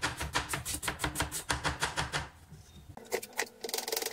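Knife chopping cabbage on a board in quick, even strokes, about six a second, stopping a little over two seconds in; a few single knocks follow near the end.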